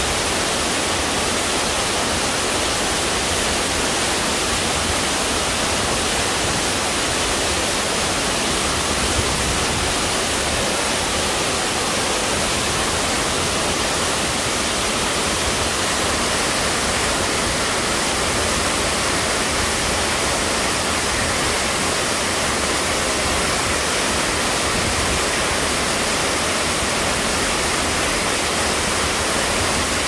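Waterfall pouring down a rock chute into a plunge pool: a steady, unbroken rush of falling water.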